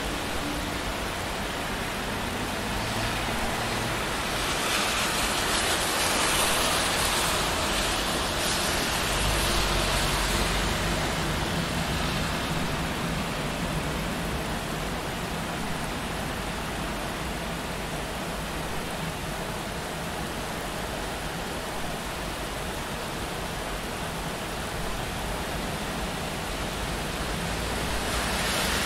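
Steady rain on a city street with traffic on wet road. A swell of hiss rises and fades from about four to ten seconds in, with a low rumble under its tail, and another swell builds near the end.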